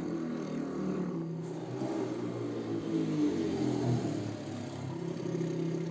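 Motorcycle engine running steadily as the bike comes slowly up the lane.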